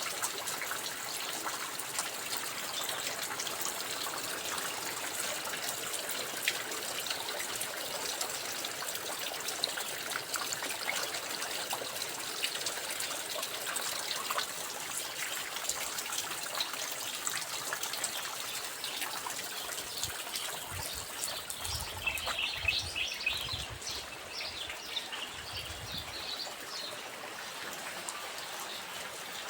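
Steady rain falling, with many drops ticking and water trickling. A bird chirps briefly about three-quarters of the way through.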